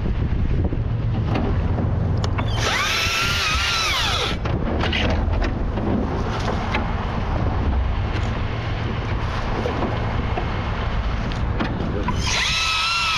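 Husqvarna T542i XP battery top-handle chainsaw running in two bursts, a high electric whine whose pitch sags as the chain bites into branches, about three seconds in and again near the end. Between the bursts, a steady low rumble and wind noise.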